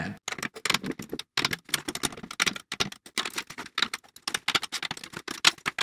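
Quick, irregular clicks and taps of a drum key and a wooden ruler on the chrome hoop and tension rods of a Ludwig Supraphonic snare drum, as the snare-side head is measured and brought to the same height at every lug.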